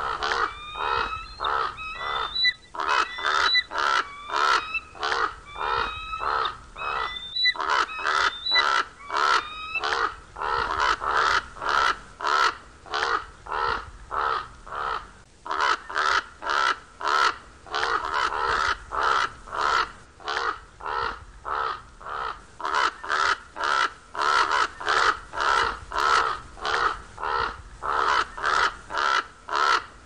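Crows cawing harshly and insistently, about two caws a second, as they mob a perched bald eagle. Thinner, higher calls are mixed in over roughly the first ten seconds.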